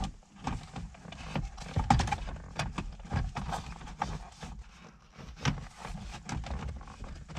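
Rubber shift boot and plastic console trim being handled and pressed into place around a shifter: scattered rustles, clicks and light knocks at an uneven pace.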